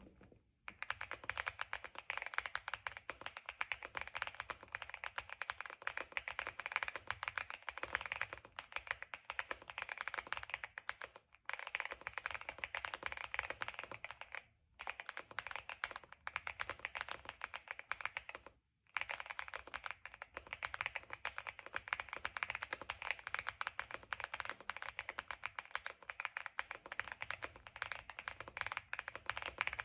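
Fast, continuous typing on a LEOBOG Epomaker Hi75 aluminium mechanical keyboard with Nimbus V3 switches: a dense run of soft, creamy keystrokes, broken by three short pauses.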